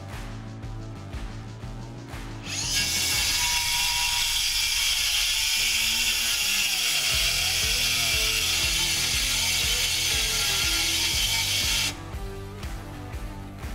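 Background music, then about two and a half seconds in a Milwaukee 2730 cordless circular saw on a compact 2 Ah battery starts cutting through OSB. It runs loud and steady for about nine seconds and stops suddenly near the end.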